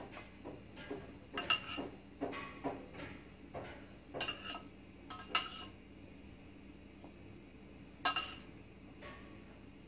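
Metal spoon scraping and clinking against a stainless steel saucepan as the last of a thick topping is scooped out. The clinks come irregularly and ring briefly, busiest in the first half, then stop for a couple of seconds before one sharp clink about eight seconds in.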